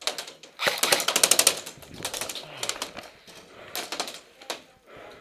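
Airsoft guns firing full-auto bursts of rapid clicking shots. One burst comes about a second in, scattered single shots follow, and another burst comes near the four-second mark.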